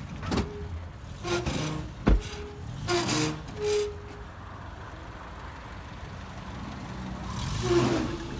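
Vehicle engine idling in a line of waiting traffic, with a few short muffled snatches of voices and one sharp thump about two seconds in.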